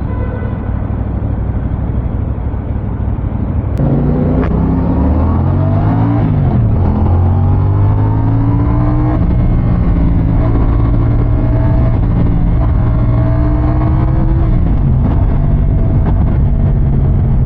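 CFMOTO 450 CLC's parallel-twin engine under hard acceleration. About four seconds in it revs up with a climbing pitch, drops at a gear change a couple of seconds later, climbs again more slowly, and drops once more near the end.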